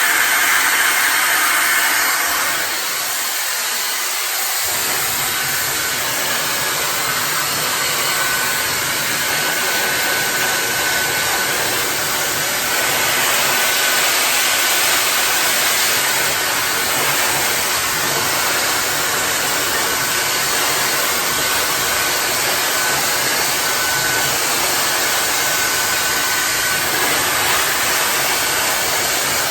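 High-speed hair dryer running, a steady rush of blown air; the low part of the sound drops away briefly about three seconds in, then returns.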